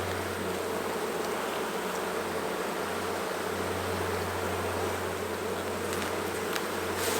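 Honeybees buzzing steadily around an opened hive, with a few faint clicks near the end.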